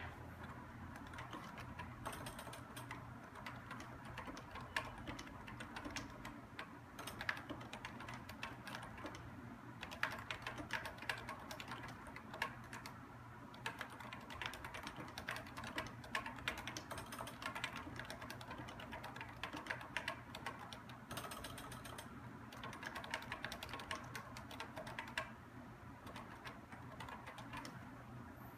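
Typing on a Topre electrostatic-capacitive keyboard with 45 g switches: a fast, continuous run of key strokes, broken by a few short pauses.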